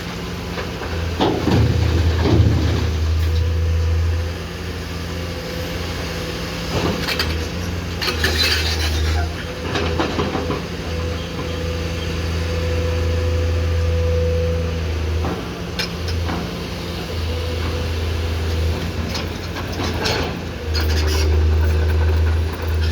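Komatsu PC210-10M0 hydraulic excavator working: its diesel engine runs steadily, the low hum swelling and easing as the load changes, with scattered metallic clanks and knocks from the bucket.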